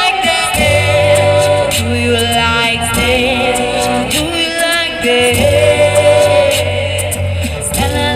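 Live busking band music: a held, wavering melody line with singing over a steady low bass, punctuated by sharp percussive hits.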